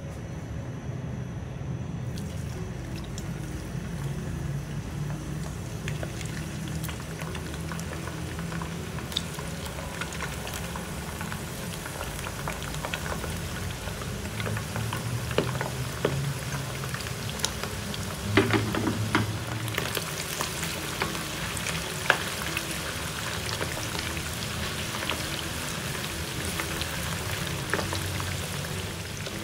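Pounded boiled beef deep-frying in hot oil in a wok, being fried until half crisp: a steady sizzle and bubbling full of small crackles. Sharper spatter pops come thicker in the second half, with a louder cluster about two-thirds of the way through, as a wooden spatula stirs the meat.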